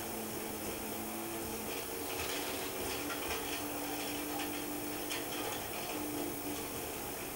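Volkswagen rally car heard from inside the cabin on a gravel stage. The engine note holds steady pitches that step up and down, over constant road noise with scattered ticks of gravel.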